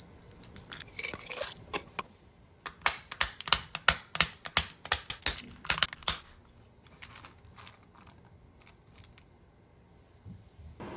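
A run of sharp clicks or taps, about three a second, from about three seconds in to about six seconds in, with a few softer clicks before it.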